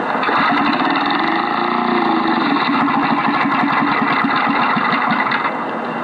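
Small Briggs & Stratton engine on a homemade remote-control car pull-started and running with a fast, even firing rhythm. The firing fades about five seconds in.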